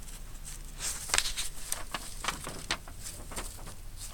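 Sheets of paper being handled, with soft rustles and light clicks coming at irregular intervals.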